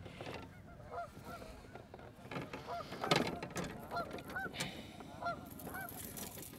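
Geese honking repeatedly, short calls about two or three a second, with a few knocks mixed in.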